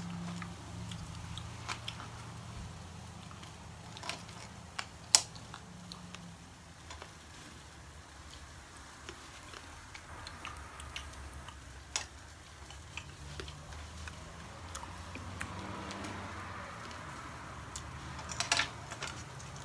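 Cutlery clicking and tapping on a plate as grilled meat is cut, with light chewing, over a low steady hum. The sharpest click comes about five seconds in, and a quick cluster of clicks near the end.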